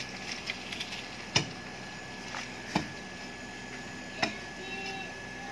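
Sharp knocks on brick and stone: three loud ones about a second and a half apart, with lighter taps between, over a faint steady high-pitched hum.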